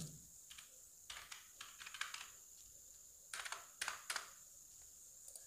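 Faint typing on a computer keyboard: a quick run of keystrokes about a second in, then a few sharper ones a little past three seconds.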